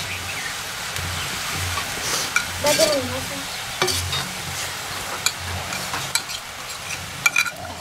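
Shredded momo filling sizzling in a hot black wok as a metal spatula stirs it, with scattered clicks and scrapes of the spatula against the pan.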